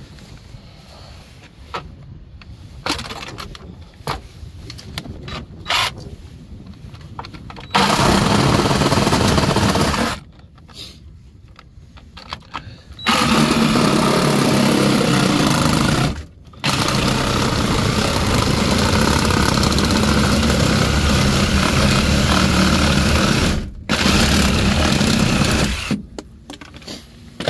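Red cordless power saw cutting through a kei truck's plastic dashboard, running in four long stretches with short pauses between them. Before the saw starts there are only a few quiet clicks and handling sounds.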